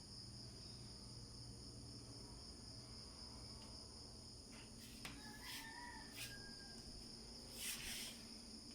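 Faint, steady, high-pitched chirring of crickets, with a few soft clicks in the second half.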